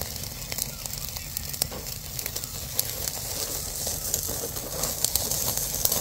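Pork trotters sizzling on a grill over a fire, with steady hissing and frequent sharp crackles and pops from the fire and fat.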